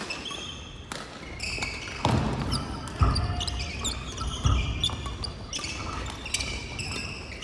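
Badminton rackets hitting shuttlecocks in quick rallies on several courts, with sneakers squeaking on a wooden gym floor and a few heavy footfalls about two, three and four and a half seconds in.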